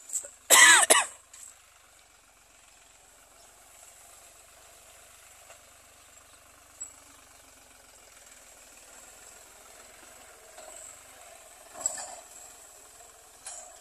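Tractor engine running faintly and steadily as it pulls a ridging implement through the sugarcane. A loud, brief cry with a wavering pitch stands out about half a second in.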